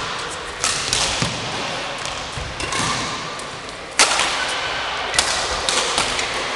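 A badminton doubles rally: a string of sharp racket strikes on the shuttlecock mixed with thuds of players' feet on the court. The loudest strike comes about four seconds in.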